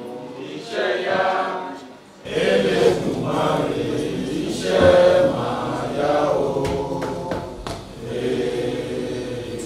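A group of people singing together in unison. The singing dips briefly about two seconds in, then carries on.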